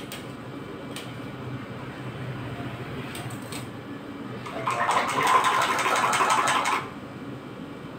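A metal spoon stirring ice cream mix in a glass: a fast, even clinking against the glass for about two seconds, starting a little past the middle and stopping suddenly. Beneath it is the steady low hum of the ice cream roll machine's cooling unit, with a few light utensil clicks earlier on.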